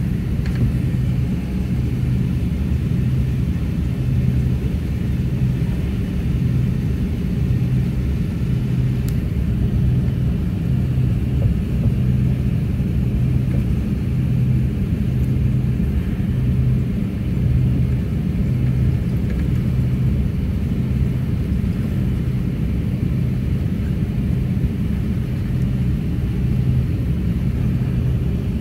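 Jet airliner cabin noise in flight: a steady low rumble, with a low hum that swells and fades about once a second.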